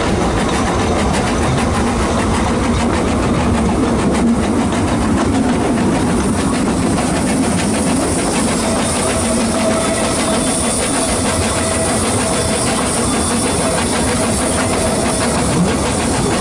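Train ride behind a 2 ft gauge steam locomotive, heard from a carriage: a steady running noise of wheels on rail with the locomotive working. A faint, thin steady tone joins about halfway through.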